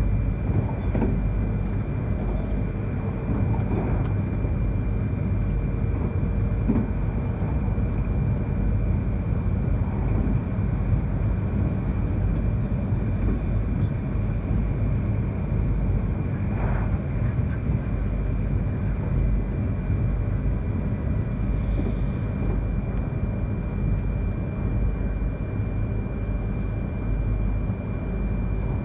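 E3-series Shinkansen train running steadily, heard from inside the passenger cabin: a constant low rumble of wheels on rail with a thin steady whine over it and a few faint knocks.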